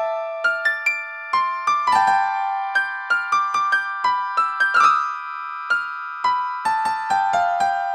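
Background music: a piano-like keyboard playing a slow, high melody of single struck notes that each fade away, with a few fuller chords in the middle.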